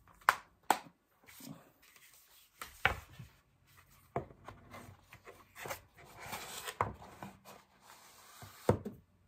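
Disc cases and cardboard packaging being handled: a string of sharp clicks and knocks, with soft rustling between them.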